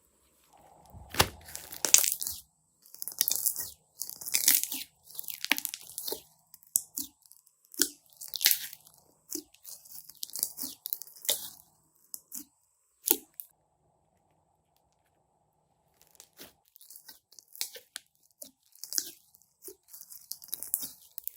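Slime being squished and stretched by hand, making irregular wet crackling and popping sounds, with a pause of about three seconds after the middle.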